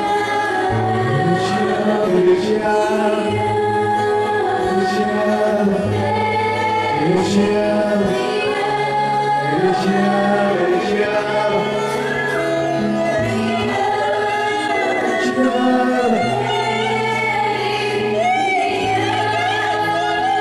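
Gospel worship music: voices singing together as a choir over held low chords that change every couple of seconds.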